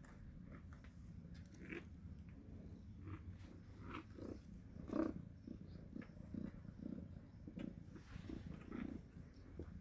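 Faint cat purring: a low, steady rumble that swells in soft, regular pulses.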